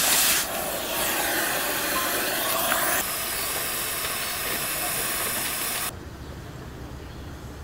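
Gas cutting torch hissing loudly as its flame cuts through a steel rail. The hiss cuts off suddenly about six seconds in.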